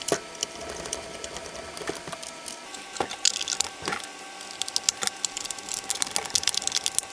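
Rapid small clicks, ticks and rattles of the FrSky Taranis X9D's plastic case being handled and screwed back together, busiest in the second half. A faint steady hum runs underneath.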